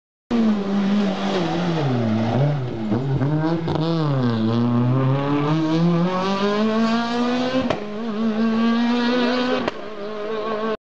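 Rally car engine coming off the throttle and blipping down through the gears for a hairpin, then accelerating out with the revs rising steadily, with a shift near the end.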